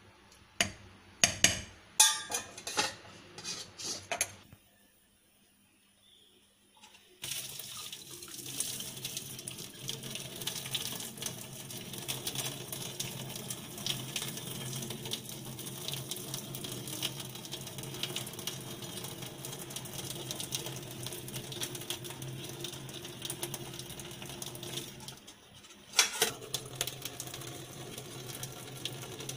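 Metal spoon clinking against a stainless steel pot for a few seconds, then after a short pause a steady splashing stream of whey from curdled milk poured out past the pot's lid into a stainless steel sink. Near the end the pouring breaks off for a moment with a clatter of the pot and lid, then runs on.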